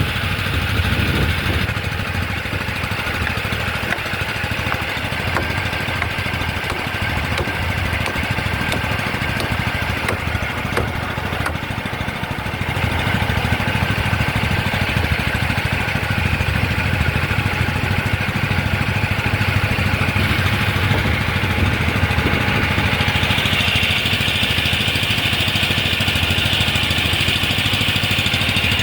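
An engine running steadily at a constant speed, a little louder from about 13 seconds in.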